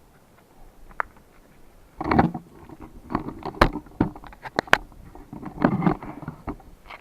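Close handling noise: a quick, irregular run of knocks, clicks, scrapes and rustles, starting about two seconds in and dying away near six seconds, after one faint click about a second in.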